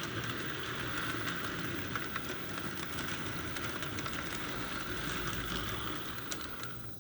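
HO-scale model steam locomotive (an old MDC Atlantic) running on track and pulling freight cars: a steady whirr from the motor and gears, with light ticks from the wheels on the rails, dropping away at the end.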